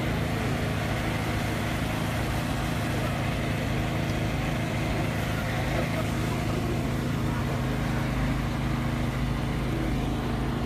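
An engine running steadily at a constant speed close by, a low even hum.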